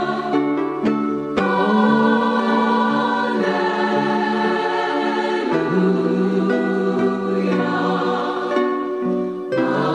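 Choral music: voices in harmony holding long chords that change every second or two.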